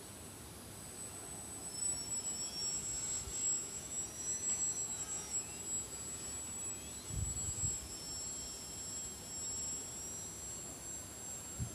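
Small electric motor and propeller of a foam RC aerobatic airplane whining in flight. The pitch rises and falls as the throttle changes and the plane passes. There is a brief low rumble about two-thirds of the way through.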